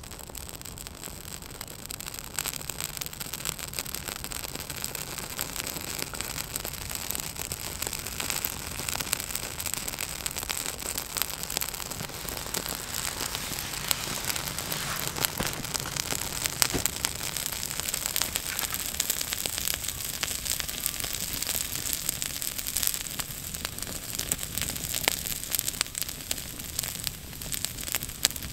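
Kindling fire of feather shavings and split sticks catching and burning, a dense crackle over a steady hiss that grows louder over the first couple of seconds.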